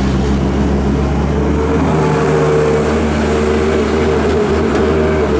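Hyundai Robex excavator's diesel engine running steadily while it works, its pitch shifting slightly about two seconds in.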